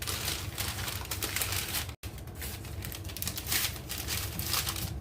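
Rolling pin working shortbread dough on baking paper, the paper crinkling and rustling with each stroke. The sound cuts out completely for a moment about two seconds in.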